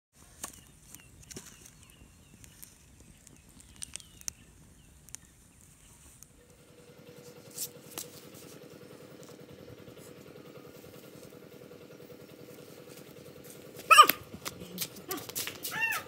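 A steady low hum comes in about six seconds in, over faint scattered ticks. About two seconds before the end, a loud short animal call with a bending pitch is followed by a few smaller calls.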